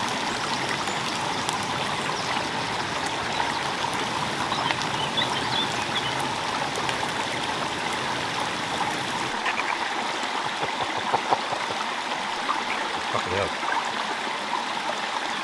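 A small woodland stream running steadily, with a few faint clicks over it.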